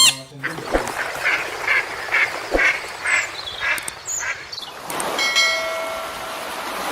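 Duck quacking repeatedly, about seven short quacks at roughly two a second, then a softer steady tone for the last couple of seconds.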